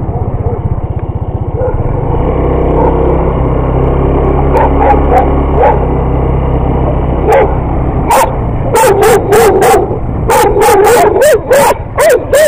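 Motorcycle engine running steadily under a few faint barks. About eight seconds in, dogs close to the bike start barking loudly and repeatedly, about a dozen sharp barks at two to three a second.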